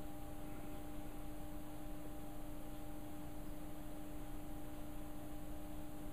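Room tone: a steady background hiss with a faint, constant hum made of a few steady tones, and no other events.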